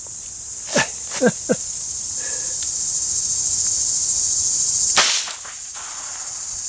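A single .22 LR handgun shot about five seconds in, sharp and brief, over a steady high buzz of insects. A few light clicks come about a second in.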